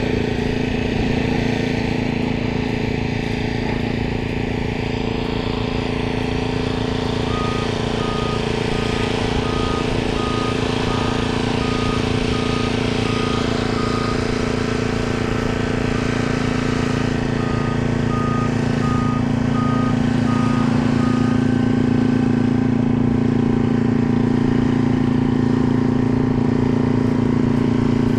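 Heavy truck engine running steadily while its reversing alarm beeps in two spells of evenly spaced beeps, the first about a quarter of the way in, the second about two-thirds in.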